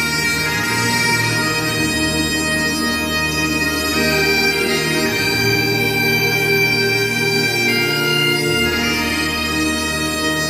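Instrumental bagpipe music: reedy held notes over a low drone, shifting to new notes every few seconds, with no beat.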